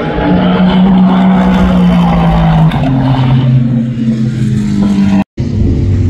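Aston Martin Vantage race car's twin-turbo 4.0-litre V8 running hard through a corner, with a sharp upshift about two and a half seconds in. The sound cuts out for a moment near the end, and another race car engine follows.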